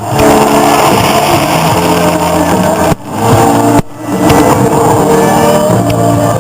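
Music: a song playing loud and steady, with two brief sudden dropouts about three and four seconds in.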